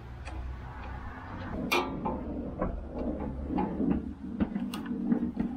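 Screwdriver clicking and scraping against the plastic and metal parts of a small engine's carburetor and throttle linkage, a run of small irregular clicks and knocks. The sharpest click comes just under two seconds in.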